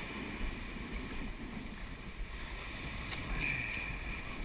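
Water rushing and hissing along the hull of a sailing yacht moving fast through the sea, with wind rumbling on the microphone.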